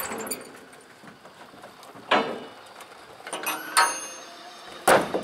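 Strap hooks and metal fittings clanking against a backhoe loader's steel bucket as a ratchet strap is handled. There are some scraping sounds, and three sharp knocks stand out about two, four and five seconds in.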